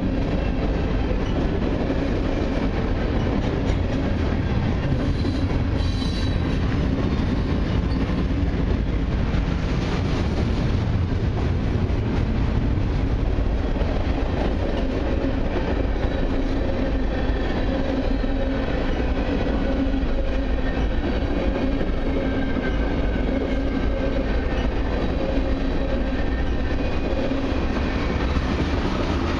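Mixed freight train's cars (gondolas, hoppers and tank cars) rolling steadily past: continuous rumble and clatter of steel wheels on rail, with faint steady tones over it and a brief click about six seconds in.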